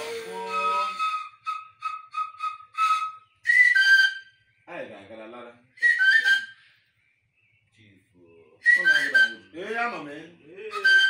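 Whistling: a quick run of short, evenly pitched whistle notes, then several shorter notes that slide down in pitch, traded back and forth with bursts of a man's voice.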